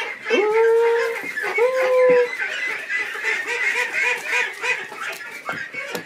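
Ducks peeping steadily, rapid high peeps several times a second. Near the start two louder, lower drawn-out calls stand out, each held for under a second.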